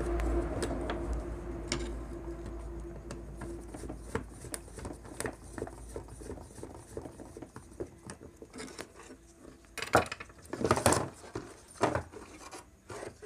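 Small clicks and rattles of hands working a transistor into a TV power-supply circuit board and shifting its wires, with a few louder knocks and scrapes near the end as the board is turned over. A low hum fades out in the first few seconds.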